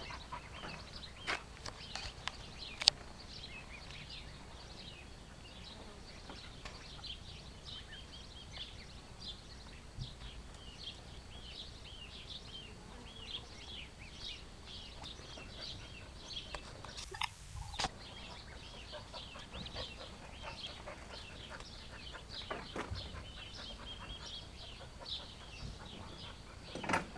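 Ducklings peeping: a continuous stream of short, high-pitched cheeps, with a few sharp knocks, the loudest about three seconds in.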